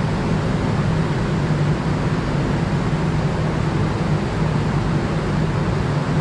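Steady road traffic noise with a constant low hum underneath.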